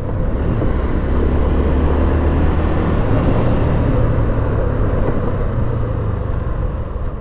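Motorcycle engine running at a steady cruise under the rider, with heavy wind rush over the microphone. The engine hum holds even throughout and eases slightly near the end.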